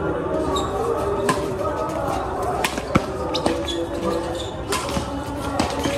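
Badminton doubles rally: a string of sharp racket hits on the shuttlecock at irregular intervals, with players' footsteps on the concrete court and spectators' voices underneath.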